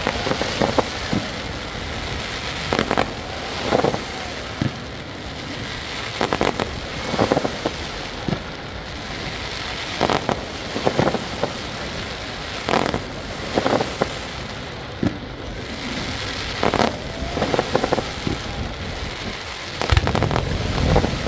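Aerial fireworks bursting: sharp bangs and crackles in clusters every one to three seconds over a steady background hiss, with deeper booms near the end.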